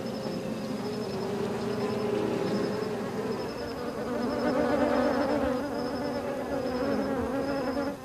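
A mass of African honey bees buzzing around a hive being harvested for honey: a steady drone whose pitch wavers and shifts. A faint high, pulsing trill repeats behind it.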